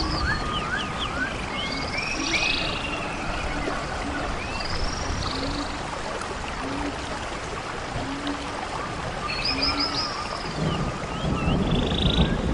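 Nature-sound background: birds chirping and whistling in short calls over a steady rushing noise like water or rain, with a low short call repeating about once a second through the middle.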